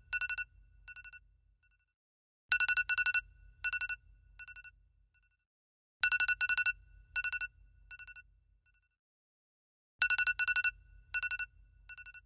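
Smartphone alarm tone ringing: a burst of quick, high beeps trailing off into a few fainter ones, repeated about every three and a half to four seconds.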